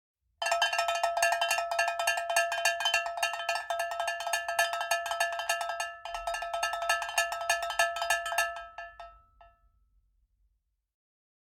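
A metal bell ringing with many rapid strikes and several steady ringing tones. It starts abruptly about half a second in and fades away over the last few seconds.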